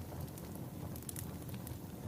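Wood fire burning in a fireplace: a steady low rumble of the flames with several small, sharp crackles from the burning logs.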